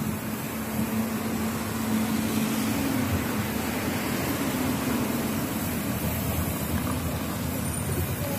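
Street traffic heard from a moving bicycle: a steady rush of road noise from cars. A low engine-like hum wavers in pitch over the first few seconds and then fades.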